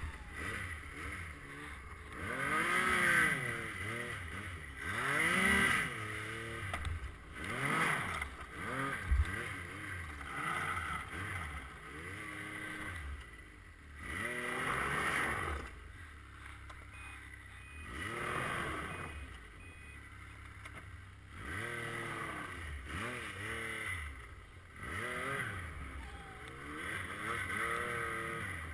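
Yamaha RS Rage snowmobile's four-stroke three-cylinder engine revving up and down again and again as it is ridden hard over rough snow. A sharp knock about nine seconds in.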